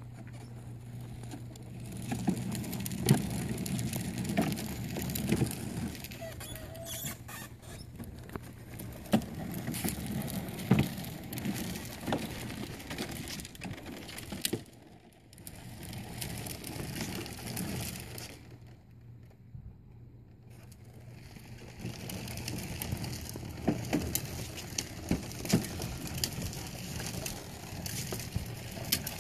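Hard plastic wheels of a Little Tikes Cozy Coupe ride-on toy car rolling and rattling over a concrete sidewalk and driveway, with many small clicks and knocks. It goes nearly quiet twice, about halfway through and again about two-thirds of the way through, as the car stops.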